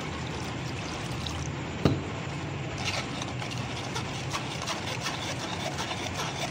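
A spoon stirring and scraping raw-mango pulp in a metal mesh strainer as the added water drains through, with light scraping ticks over a steady low hum. A single knock comes about two seconds in.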